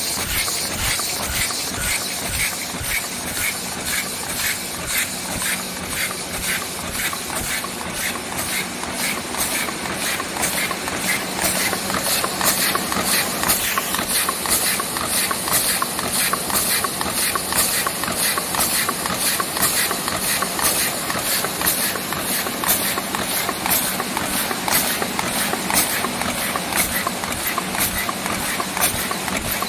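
A 180 ml paper ice cream cup forming machine running at production speed: a fast, even mechanical clatter from its indexing turrets and forming stations over a steady hiss. A low hum sounds under it for the first part and then fades.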